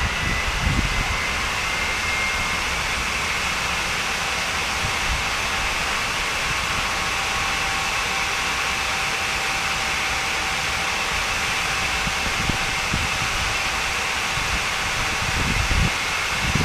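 Fairchild J44 turbojet spinning during a start attempt: a steady rushing hiss with a high whine that edges up in pitch over the first couple of seconds, and a lower tone that joins about halfway. Wind buffets the microphone near the start and near the end.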